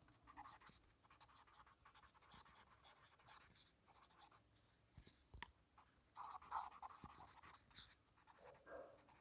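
Faint scratching of a felt-tip marker pen writing on paper in short strokes.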